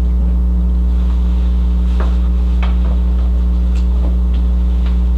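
Steady low electrical mains hum on the recording, with a few faint clicks and knocks about two and four seconds in.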